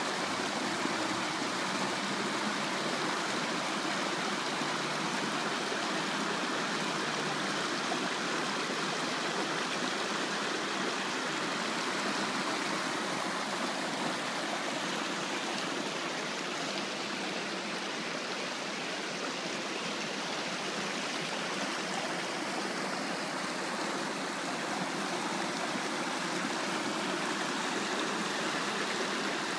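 Shallow mountain stream rushing over rocks and fallen logs: a steady, unbroken rush of water.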